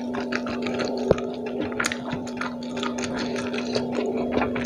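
Close-up chewing and wet mouth smacking of a mouthful of rice and fish eaten by hand, a run of small irregular clicks and squishes. A steady low hum runs underneath.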